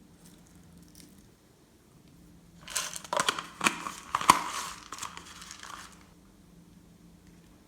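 A burst of crinkling, crackling handling noise with sharp clicks, lasting about three seconds and starting nearly three seconds in.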